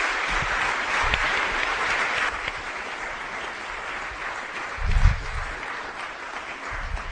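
Audience applauding, loudest at first and slowly fading, with a dull low thump about five seconds in.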